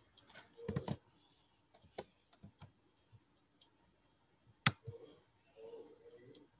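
Scattered sharp clicks of a computer mouse and keyboard at irregular intervals, the loudest about two-thirds of the way in.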